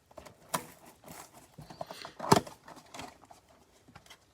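Trading cards and foil card packs being handled: irregular clicks, taps and rustles, with one sharper tap about two seconds in.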